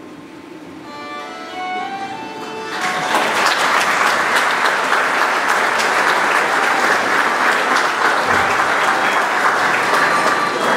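A folk band's melody starts about a second in, and about three seconds in the audience breaks into loud applause that carries on over the music.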